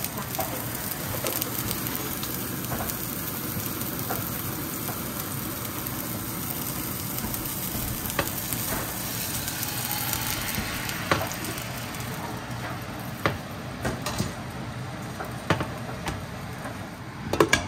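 Hot oil sizzling in a frying pan as sliced onion and then bánh xèo batter cook in it, a steady hiss that softens after about ten seconds. A few light knocks of utensils sound in the second half.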